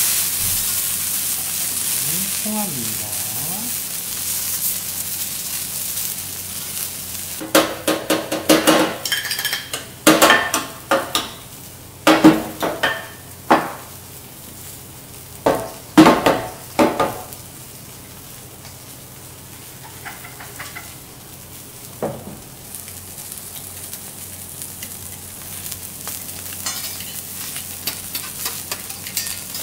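Patagonian toothfish fillets and mussels sizzling on a steel teppanyaki griddle, the sizzle strongest at first, dying down, then rising again near the end. Through the middle comes a run of loud, sharp metallic clanks and clinks of the chef's utensils against the hot plate.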